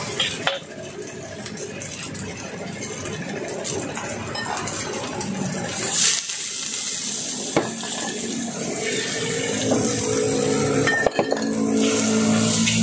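Metal spatula scraping and clinking against a steel wok while rice is stir-fried, over a steady frying sizzle, with a few sharper clanks.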